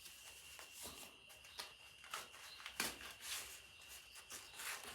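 Takeaway food packaging rustling and crinkling in short, irregular handfuls as a rice parcel is worked open and lifted out.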